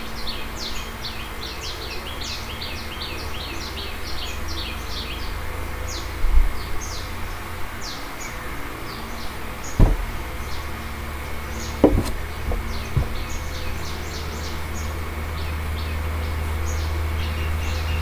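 Birds chirping: rapid, high, falling chirps, thick at first and then thinning out, over a steady low rumble. A few soft knocks about six, ten and twelve seconds in.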